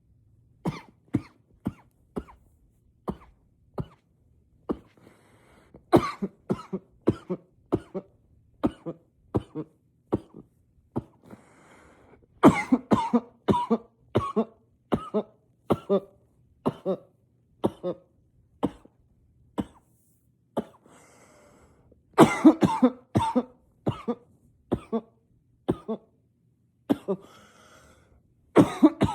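A man coughing over and over in an unstoppable fit, muffled into a pillow: single short coughs at first, then louder clusters of rapid coughs about six, twelve and twenty-two seconds in and again near the end.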